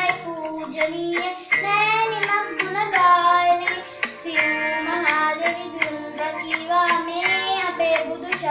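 Children singing a song together with musical accompaniment, over a steady low sustained note and sharp percussive beats several times a second.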